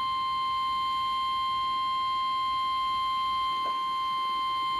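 Emergency alert warning tone for a tornado warning: one steady, unbroken high beep just above 1 kHz, sounding through a small speaker. A brief faint knock comes about three-quarters of the way through.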